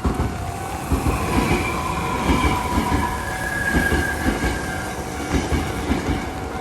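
Hankyu train passing over a level crossing, its wheels clattering over the rail joints in a run of heavy thumps. High steady whining tones sound over it in the middle of the pass.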